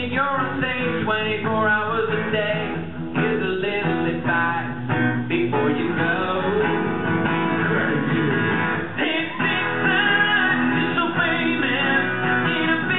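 A man singing a pop song live into a handheld microphone over instrumental backing.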